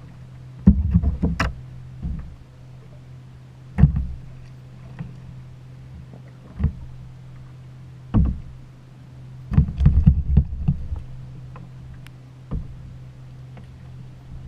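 Irregular knocks and thumps against a plastic fishing kayak, some single and some in quick clusters, coming every few seconds over a steady low hum.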